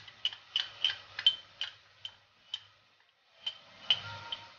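Metal spoon clinking against a small glass spice jar while turmeric powder is scooped out and tipped into a bowl: a quick run of about ten sharp clicks that slows over the first two and a half seconds, then three more taps near the end.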